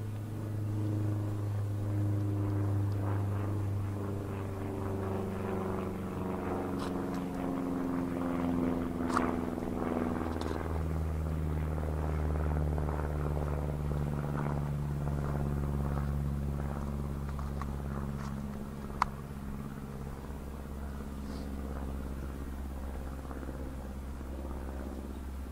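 Multirotor drone's propellers humming, several tones sliding up and down in pitch as it manoeuvres, with a sharp tick near the end.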